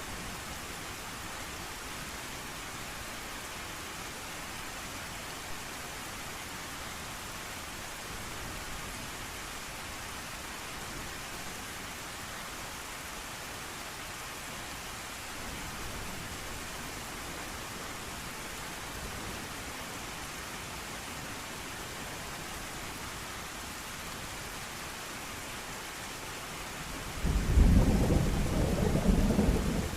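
Steady heavy rain hiss; near the end a loud, low rumble of thunder breaks in and keeps rolling.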